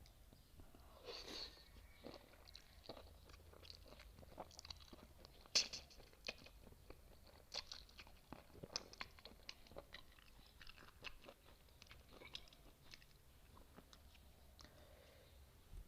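Close-miked chewing of spicy noodles and kimchi, a run of small wet mouth clicks and crunches, with one louder click about five and a half seconds in.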